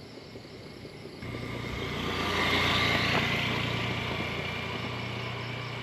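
A small motorcycle passing by on the road. Its steady engine hum comes in about a second in, is loudest around the middle, then slowly fades as it rides away.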